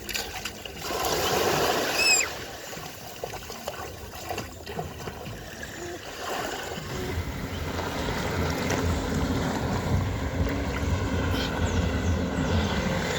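Sea water splashing and washing at the beach, loudest for a moment about a second in, then a steady low rumble that builds after about six seconds.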